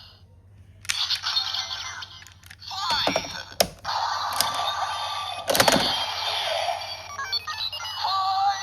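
Electronic sound effects and a synthesized-voice jingle from a DX Kamen Rider Lock Seed toy, starting after a brief pause. Sharp plastic clicks cut in around three seconds in and again, loudest, at about five and a half seconds.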